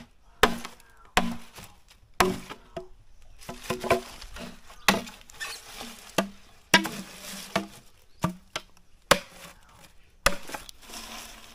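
Machete chopping into green bamboo tubes: a series of sharp, irregularly spaced strikes, about one a second, several followed by a brief ring from the hollow bamboo.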